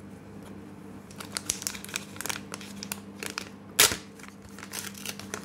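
Pokémon trading card booster pack wrapper crinkling and being torn open by hand, starting about a second in, with one loud, sharp tear a little under four seconds in, then more rustling of the wrapper and the paper insert.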